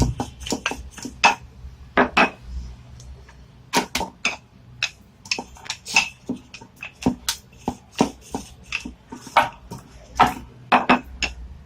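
Rolling pin rolling out dough on a board: irregular knocks and clacks, a few a second, as the pin bumps and rattles against the board.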